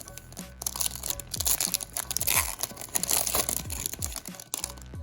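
Crinkling and tearing of crinkly packaging being handled, loudest in the middle seconds, over background music with a steady thumping drum beat.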